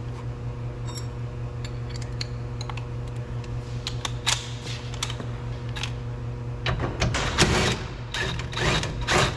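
Ratchet wrench clicking in short runs as 10 mm bolts holding a car door mirror are backed out, with a few single clicks first and two longer bursts of rapid ratcheting near the end, over a steady low hum.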